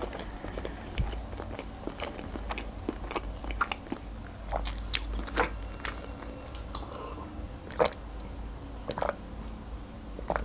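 Close-miked chewing of a sushi roll, with wet mouth clicks and smacks coming irregularly.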